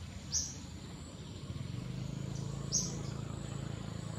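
A bird giving short, high chirps, twice about two and a half seconds apart, over a low steady hum that grows louder partway through.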